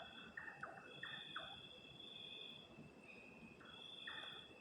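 Faint night chorus of insects trilling in a steady high tone, the upper trill swelling and fading every second or two. Beneath it come short falling chirps in quick groups of two or three from another calling animal.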